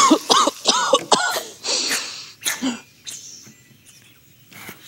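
An animated character's voice: short, shaky gasping breaths, then a few brief coughs.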